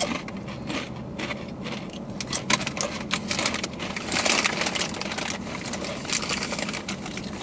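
Close-up crunching of Takis Fuego rolled tortilla chips being chewed: a rapid, irregular run of crisp cracks, thickest about four seconds in, over a low steady hum.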